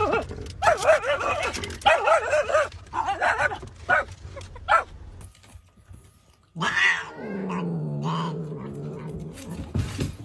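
A dog gives a quick run of short whining yelps, each bending up and down in pitch, for about five seconds. After a short pause, a cat makes a low, drawn-out growl that lasts about three seconds.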